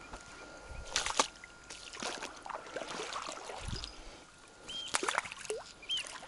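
Knocks and clatter on a boat with water sloshing around it, the sharpest knocks about a second in and again near five seconds. Near the end a bird gives two short chirping calls.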